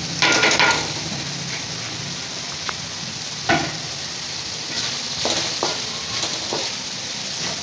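Chicken and chopped vegetables frying in hot oil in an aluminium wok, with a loud burst of sizzling just after the start as the vegetables go in, then a steady sizzle. A wooden spatula stirs and scrapes against the pan several times.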